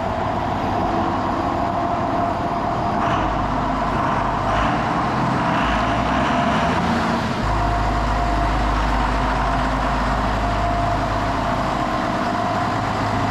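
John Deere 7405 tractor's diesel engine running steadily in a shop, with a deeper low rumble coming in about three seconds in and again from about halfway. The tractor is being shifted in and out of four-wheel drive to test a repaired transfer case.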